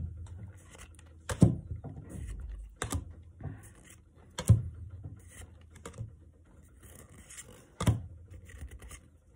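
Pokémon trading cards flipped through by hand, each card slid from the front of the stack to the back: five sharp card snaps, mostly about a second and a half apart with a longer pause before the last, and soft card-on-card scraping between.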